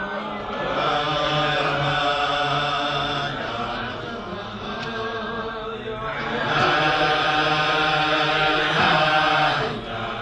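A group of men singing a wordless Chasidic niggun together, growing louder about six and a half seconds in.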